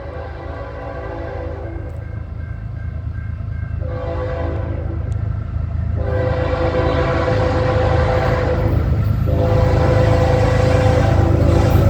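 CN locomotive's multi-note air horn sounding in long blasts, with short breaks about three and nine seconds in, over the low rumble of the approaching train, which grows steadily louder.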